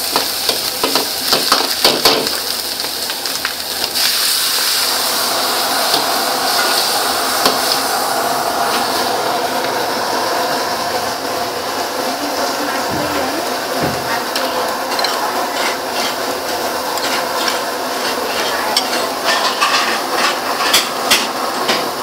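Stir-frying in a steel wok: a metal ladle scrapes and clacks against the pan over the steady hiss of meat and garlic sizzling in hot oil. The ladle strokes are densest in the first few seconds and again near the end, with mostly unbroken sizzling in between.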